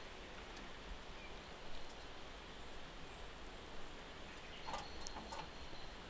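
Steady rushing of a forest stream. About five seconds in, a short cluster of sharp clicks and a thin high note from a small bird.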